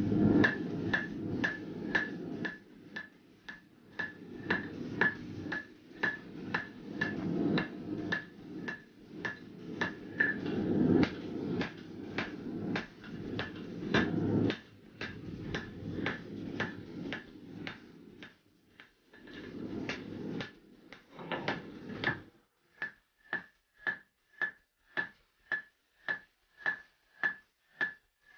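Hand hammer striking hot axe steel on an anvil in a steady rhythm of about two blows a second, each blow with a short metallic ring. A rushing background noise runs under the blows until about two-thirds of the way through. After that the blows ring out alone.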